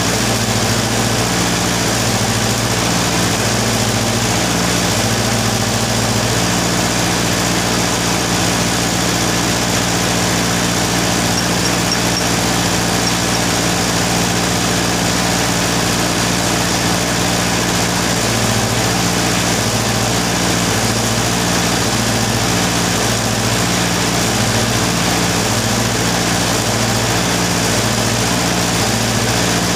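An engine runs steadily. Its low hum steps back and forth between two pitches over a constant hiss.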